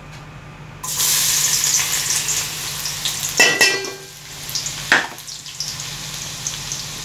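Minced garlic hitting hot cooking oil in a stainless steel pot: a sizzle that starts suddenly about a second in and carries on, with a couple of brief scrapes and a knock near the middle as it is stirred.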